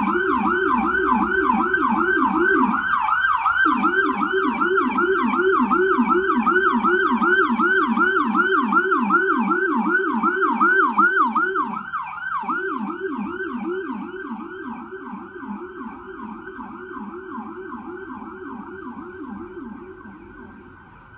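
Ambulance siren in a fast yelp, several rising-and-falling sweeps a second, with a lower second tone that drops out twice. It is loud for the first half and then grows steadily fainter as the ambulance moves off.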